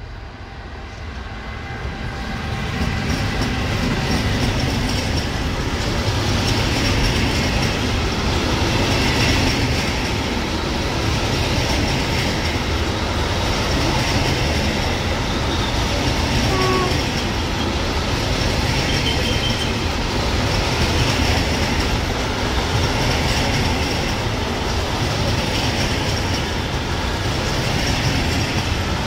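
Freight train passing close by, hauled by an electric locomotive: the noise builds over the first few seconds as the locomotive arrives. A long rake of covered sliding-wall freight wagons then rolls past with steady wheel-on-rail noise.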